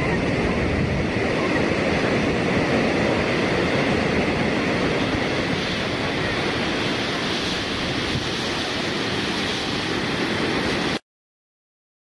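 Waterfall cascading over rocks: a steady, even rush of falling water that cuts off suddenly near the end.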